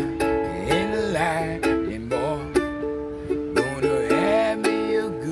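Ukulele strummed in a steady blues rhythm, about two strums a second, with a wordless sung melody gliding over the chords.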